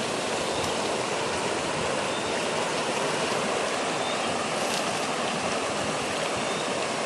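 Fast-flowing river water rushing steadily, a strong current from water let out of an upstream dam.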